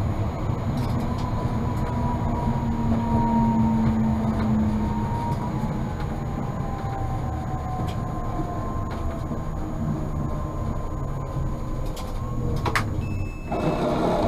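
Tatra T3 tram running, heard from inside, with a low rumble and a motor whine that falls slowly in pitch as the tram slows. Near the end come a sharp click and a short, louder clatter.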